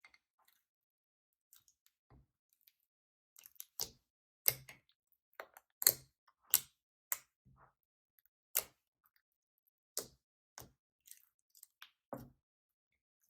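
Slime being kneaded and folded by hand, giving irregular sharp pops and clicks, sparse at first and then coming about every half second to a second.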